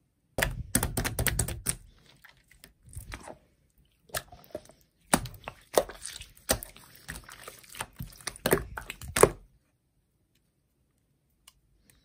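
Clear teal glitter slime with leaf pieces being stretched and squeezed by hand, giving dense runs of sticky clicks and pops. The popping starts about half a second in, pauses briefly, then runs again until about three seconds before the end.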